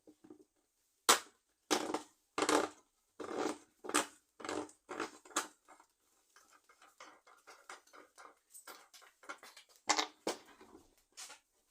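Old rusty hand hedge shears being taken apart: a run of sharp knocks, about two a second, then quieter scraping and rattling, then two more loud knocks near the end.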